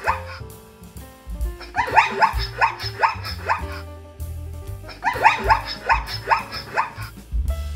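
Zebra barking calls: two bouts of rapid, repeated yelping barks, each about two seconds long, over background music.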